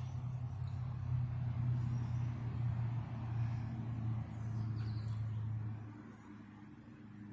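A low, steady engine hum that swells, dips briefly past the middle and fades away about six seconds in, like a vehicle passing.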